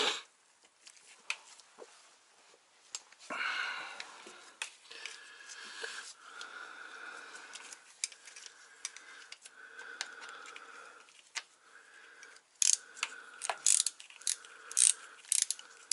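Gloved hands handling the truck transmission's wiring and connectors: scattered rustles and small clicks as cables are hooked up, with a quick run of sharp clicks near the end.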